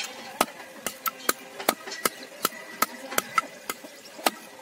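A large curved knife chopping at the end of a bamboo stick resting on a wooden block, trimming off waste. Quick, sharp chops, about three a second.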